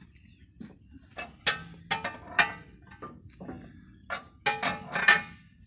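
Sharp metallic clanks and clinks with a short ring, several in two bunches, as metal fittings and levers on a 1926 Rumely M winch tractor are handled.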